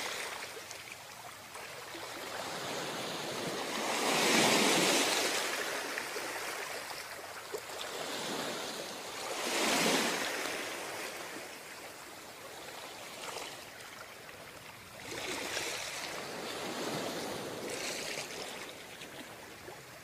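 Sea waves surging in and washing back, each swell rising and fading over a couple of seconds, about every five or six seconds.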